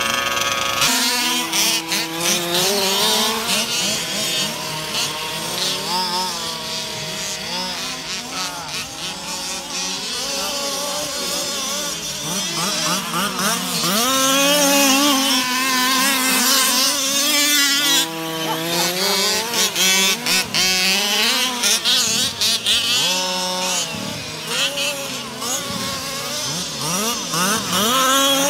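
Several 1/5-scale petrol RC cars' small two-stroke engines buzzing and revving at once. Their overlapping pitches rise and fall as the cars race.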